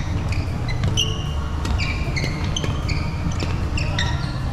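Badminton rally on a wooden hall floor: frequent short, high-pitched squeaks of court shoes as players push off and brake, with a few sharp clicks of rackets striking the shuttlecock. A steady low rumble runs underneath.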